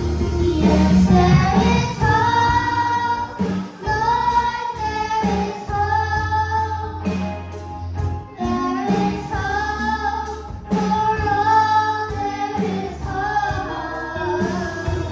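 Children's gospel choir singing in unison over instrumental accompaniment with a steady bass line.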